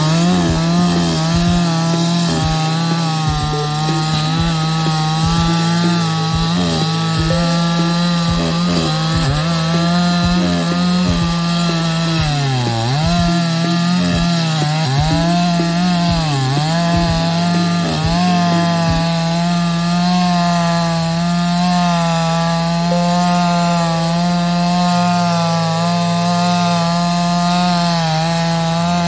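Chainsaw running at full throttle while cutting wood, its engine note high and steady. About halfway through, the pitch dips briefly three times as the chain takes load in the cut.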